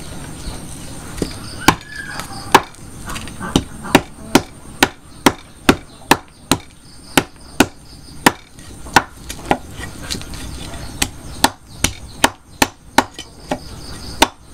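A cleaver scraping the scales off a whole red fish on a wooden chopping block: a steady series of sharp scraping knocks, about two a second, one for each stroke of the blade, starting about a second and a half in.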